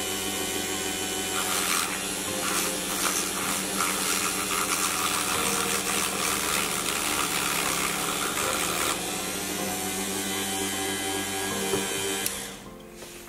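TACKlife rotary tool driving a small sanding drum through its flexible shaft extension: a steady motor whine, with scratchy grinding while the spinning drum is pressed into a cardboard pack. Near the end the motor sound dies away.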